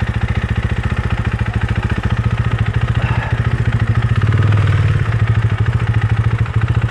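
Husqvarna Svartpilen 401's single-cylinder engine idling with a steady, even beat, with a brief swell of louder engine sound about four seconds in.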